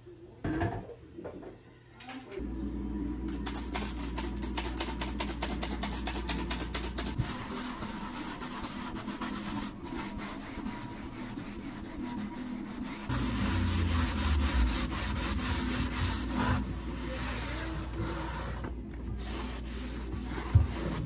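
A scrub sponge rubbing back and forth in quick strokes over the wooden top of a kitchen cabinet, scrubbing off stuck-on grease, loudest a little past the middle, then a cloth wiping. A short knock about half a second in.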